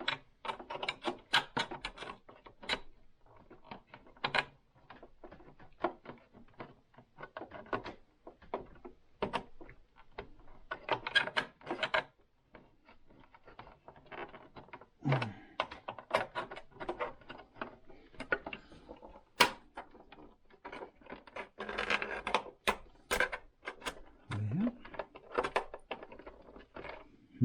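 Irregular clicks, taps and knocks of hands handling and prying at the plastic casing and parts of a Singer Advance 7422 sewing machine while trying to work out how it comes apart.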